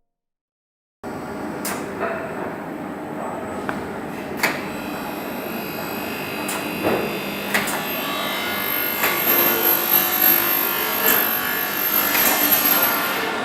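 Polyurethane gasket dispensing machine running: a steady mechanical noise with a thin high whine and scattered sharp clicks and knocks. It starts abruptly about a second in.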